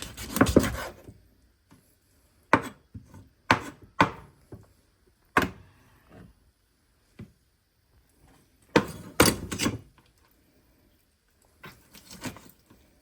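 Knife cutting and chopping through a raw whole chicken on a cutting board to separate the wings: irregular sharp chops, with several in quick succession about nine seconds in.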